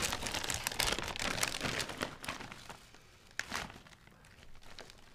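Lay's potato chip bag crinkling as it is pulled open at the top and handled. The rustling fades out about two and a half seconds in, followed by a few faint short rustles.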